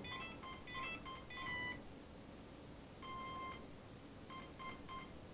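Faint electronic startup beeps from a Cheerson CX-20 quadcopter as it powers up and links with its transmitter: a quick run of short tones at different pitches, one longer beep about three seconds in, then three short beeps near the end.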